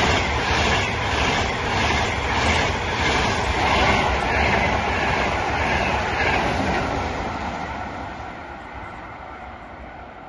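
Frecciarossa high-speed electric train passing at speed: a loud, continuous rushing noise with a rhythmic clatter as the wheels run over the rail joints. It fades steadily over the last few seconds as the train pulls away.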